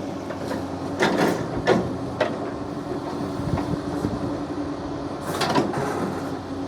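Excavator engine running steadily with a constant hum, with a few sharp knocks from the arm and bucket working, some about a second in and a cluster near the end.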